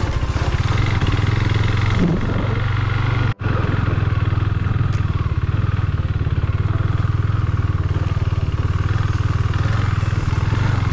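KTM 390 Duke's single-cylinder engine running at low, steady revs. The sound cuts out for an instant about three and a half seconds in.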